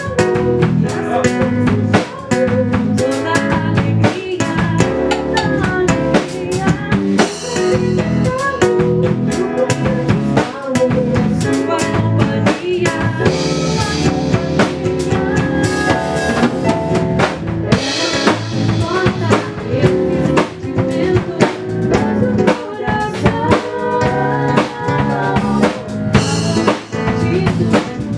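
A band playing an instrumental passage, with drum kit (bass drum, snare and rimshots) and other pitched instruments.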